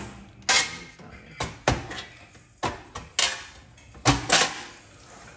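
A coin bank being forced open: about eight sharp, irregular knocks, some in quick pairs.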